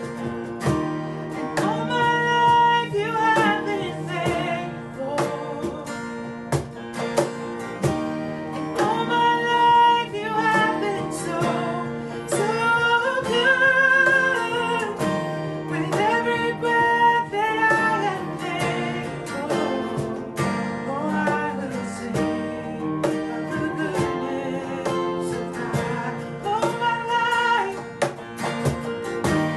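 Live worship song: acoustic guitar strummed with keyboard accompaniment under a singer holding long, wavering notes.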